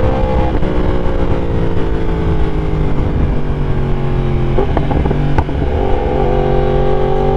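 Yamaha YZF-R1's 998 cc crossplane inline-four running through a full exhaust system while the bike is ridden. The engine note falls slowly for about four seconds, then climbs again near the end.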